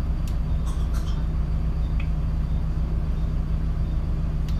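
Double-decker bus engine idling while the bus stands still: a steady low hum heard from the top deck, with a few faint sharp clicks.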